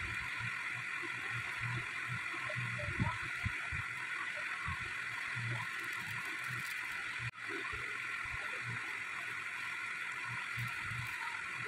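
Steady hiss with soft, irregular low thumps as a fabric baby book is handled and its cloth pages are turned. The sound cuts out for an instant about seven seconds in.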